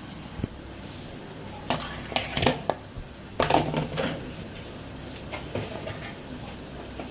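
Kitchen pots and metal utensils clattering in two bursts of clinks and knocks, a second or so apart.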